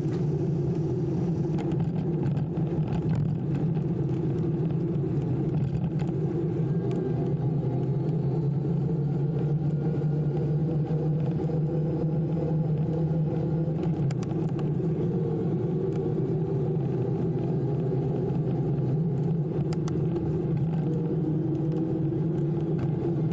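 Steady low rumble of wind and tyre noise on an electric bike riding along a paved street, with a faint thin whine that rises slowly in pitch for a few seconds about a third of the way in.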